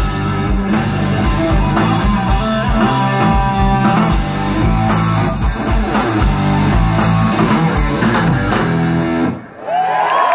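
Live rock band of electric guitar, bass and drum kit playing, with the song ending about nine seconds in. The crowd starts to cheer just after.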